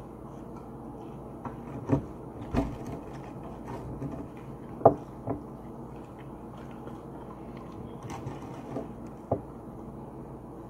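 Eating at close range: hands handling and biting fried shrimp and fries, with a few short, sharp clicks and knocks, the loudest about five seconds in, over a steady low hum.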